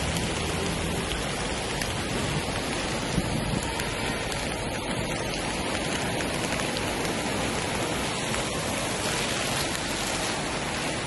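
Steady rush of water from the Teesta River in flood.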